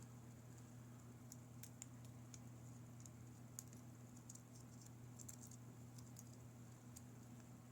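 Faint, scattered light clicks and ticks of a bobby-pin lock pick working the spool pins inside a Burgwächter Karat padlock, over a steady low electrical hum.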